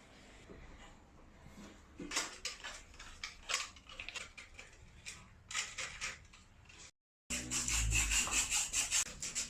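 A hand tool scraping back and forth in quick, repeated strokes on a water pipe during its repair, as in sawing or sanding the pipe. The strokes break off briefly about seven seconds in and come back louder and faster.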